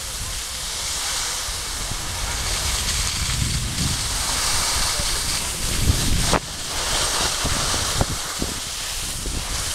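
Wind rushing over the microphone and skis scraping over snow while skiing downhill, a steady rushing noise. A sharp click about six seconds in, after which it gets a little quieter.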